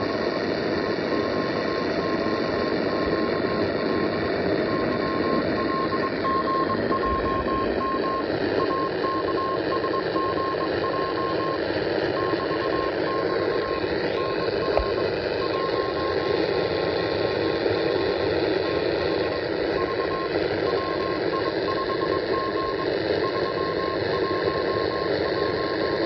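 Morse code received on an Eton E1 shortwave radio tuned to 2681 kHz: a single beeping tone keyed on and off in dots and dashes over steady static hiss. About halfway through, a faint whistle dips in pitch and comes back up.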